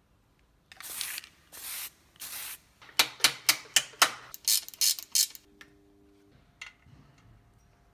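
Short hissing spray bursts: three of about half a second, then a quick run of about nine short, sharp ones.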